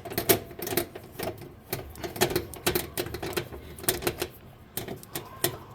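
Small screw being driven back in with a hand screwdriver on a microwave's light cover: a run of irregular light clicks and taps, several a second, as the metal bit works in the screw head.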